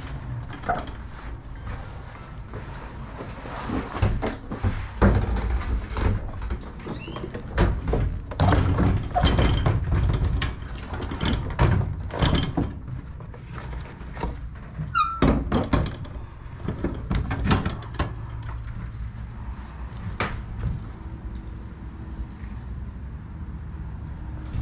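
Irregular knocks, clunks and rattles of lawn equipment being handled and hung on metal wall racks inside an enclosed trailer: a tool set into a rack and a backpack leaf blower hung on its hook. There is a brief squeak about halfway through, and a low steady hum underneath.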